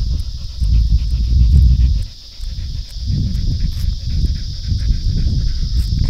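Steady high-pitched buzz of cicadas singing, under a loud, uneven low rumble that drops away briefly about two seconds in.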